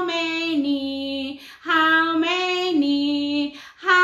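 A woman singing a children's counting song unaccompanied: two long phrases of held notes, each stepping down in pitch partway through, with a short breath between them.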